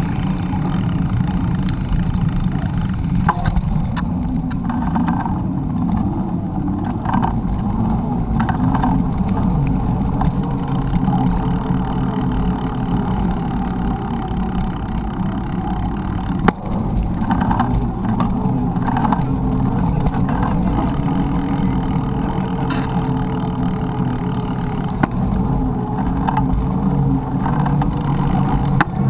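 Steady low rumble of road and wind noise picked up by an action camera mounted on a moving mountain bike, mixed with city car traffic. A single sharp knock about halfway through.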